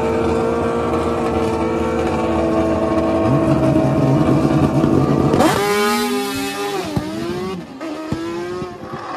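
Drag-racing motorcycle engine held at high revs on the starting line, the revs climbing about three seconds in. A little past halfway it launches: the engine note sweeps up, rises and drops with each gear change, and fades as the bike runs away down the strip.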